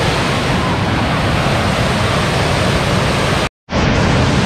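Cold Brook Falls waterfall rushing, a steady loud roar of falling water that drops out for a moment about three and a half seconds in, then carries on.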